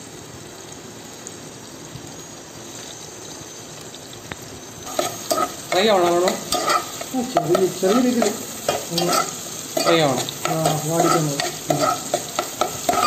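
Small onions sizzling in hot oil in a pot. From about five seconds in, a metal spoon stirs them in repeated scraping strokes against the pot, each stroke with a pitched scrape.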